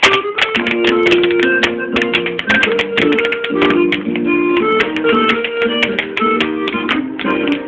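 Irish dance music played back over a stereo, overlaid with rapid sharp clicks of Irish dance hard shoes striking the floor in rhythm with the tune.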